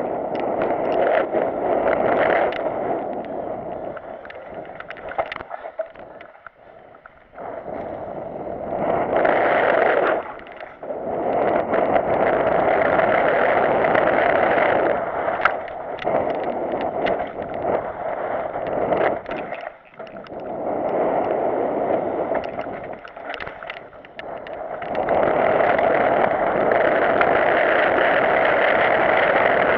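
Wind rushing over a GoPro action camera's microphone as a mountain bike descends a dirt trail, swelling and dropping several times with the bike's speed, mixed with tyre noise on the dirt and short clicks and rattles from the bike over bumps.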